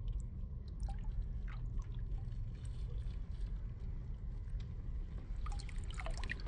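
Water trickling and dripping beside a kayak hull, with scattered small drips and ticks that come more often near the end, over a steady low rumble.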